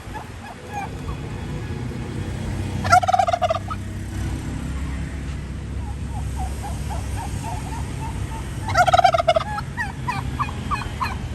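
Turkey gobbling twice, about six seconds apart, each gobble a short rapid warble, with soft short peeping calls in between.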